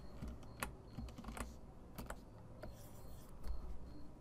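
Faint, scattered sharp clicks and taps from a computer drawing setup, irregularly spaced, with a brief scratchy rustle a little after three seconds in.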